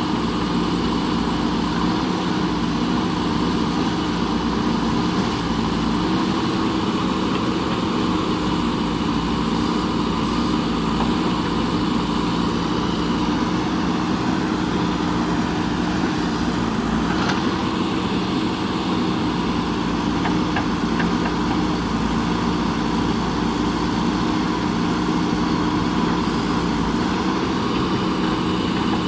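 JCB backhoe loader's diesel engine running steadily at an even, unchanging pitch.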